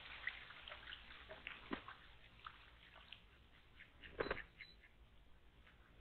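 A mallard drake bathing on a pond: faint splashing and dripping water, with a louder burst of splashing about four seconds in.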